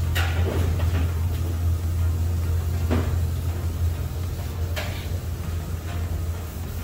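A steady low hum with three sharp knocks or clatters: one right at the start, one about three seconds in and one near five seconds, typical of kitchen clatter.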